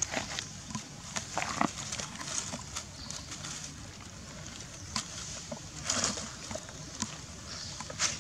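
Outdoor ambience: a steady low hiss with scattered small clicks and rustles, and a short rustling burst about six seconds in.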